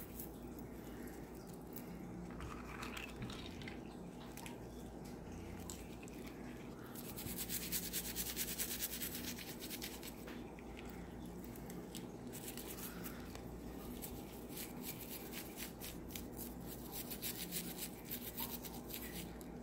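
A small toothbrush scrubbing a silver charm bracelet in a bowl of soapy baking-soda water: quick scratchy bristle strokes in spells, the fastest and loudest from about seven to ten seconds in and again near the end.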